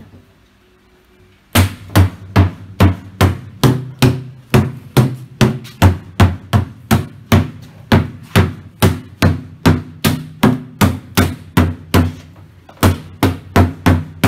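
Rubber mallet striking a semi-transparent model-aircraft fuselage mould, sharp blows at about two a second with a short low ring after each, starting about a second and a half in. The mould is tapped along its length to release the composite fuselage moulded inside it.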